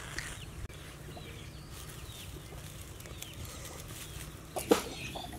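Chickens clucking faintly, with scattered short bird calls over a low steady rumble, and a few sharp knocks near the end.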